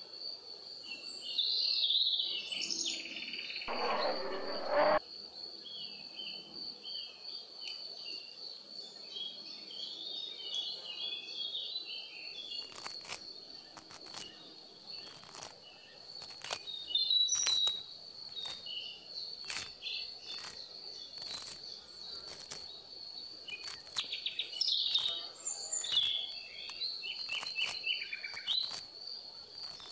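Birds chirping and calling over a steady, high, pulsing insect trill, with a brief louder rushing noise about four seconds in.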